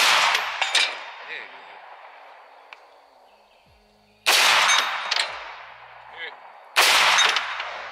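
Three rifle shots from an AR-style rifle: one right at the start, a second about four seconds later, and a third about two and a half seconds after that. Each loud crack trails off over a second or two with fainter sharp echoes.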